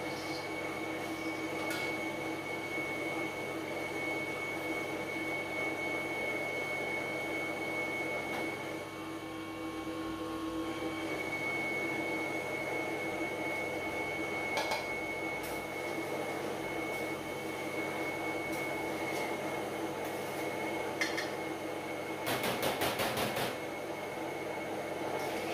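Electric stainless-steel peanut butter grinder running with a steady motor hum and a high whine while it grinds peanuts, easing for a moment about a third of the way through. A few light clicks near the end, then a quick rattle of clinks.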